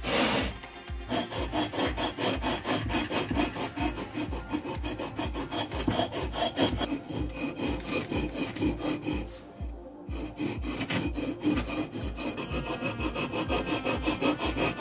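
Flat hand rasp scraping a block of aerated autoclaved concrete in quick back-and-forth strokes, about three a second, with a short pause near ten seconds in.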